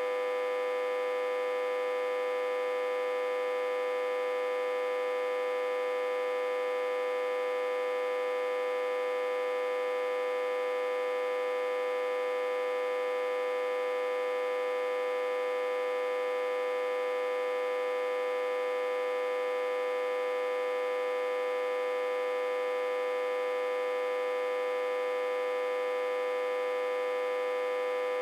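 Autotransformer, reverse-connected to a step-down transformer and fed about 60–80 V, humming: a steady, unchanging hum with one strong tone and many overtones above it.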